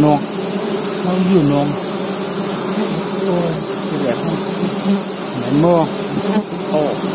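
Honey bees buzzing steadily around their open comb. Several individual buzzes come close and rise and fall in pitch.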